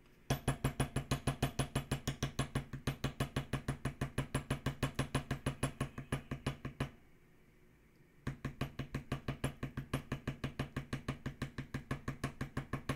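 Rapid light taps of a white mallet on a metal leather-tooling stamp, about six taps a second, driving the stamp into damp leather that rests on a marble slab. The taps pause for about a second and a half midway, then resume.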